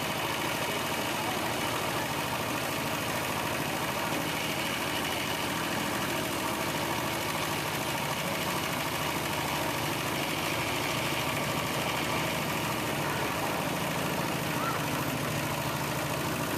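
A small vehicle engine running steadily at low speed, heard from on board.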